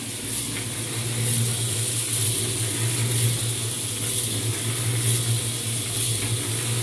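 A small concrete mixer running with soybean seed tumbling in its drum as the seed is coated with inoculant and growth-regulator mix: a steady motor hum under a dense hiss of moving seed.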